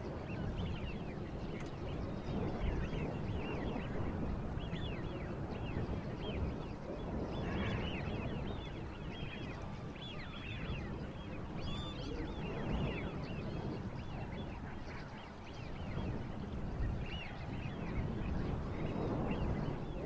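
Many birds calling at once: a dense, continuous run of short high calls over a steady low rumble.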